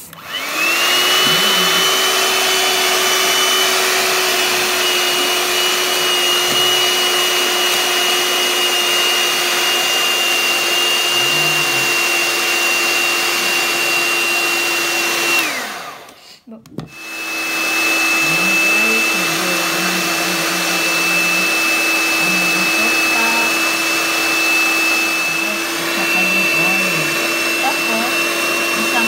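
Electric hand mixer beating eggs and sugar in a plastic bowl. The motor spins up with a rising whine and runs steadily, winds down and stops about fifteen seconds in, then starts again and runs on.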